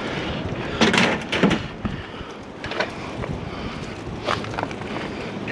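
Wind buffeting the microphone, with a few sudden knocks and clanks of metal bike frames being handled and loaded onto a trailer.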